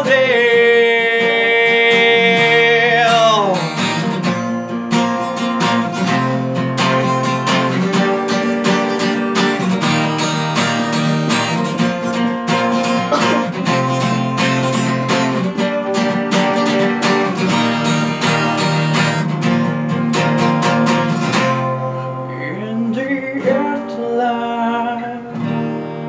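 Acoustic guitar strumming chords through an instrumental break of a slow song. A man's voice holds a long sung note at the start, about three seconds, and singing comes back near the end.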